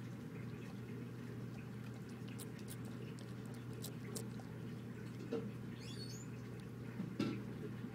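Bearded dragon chewing crickets: faint scattered crunchy clicks over a steady low hum, with a short high squeak about six seconds in and a couple of brief knocks.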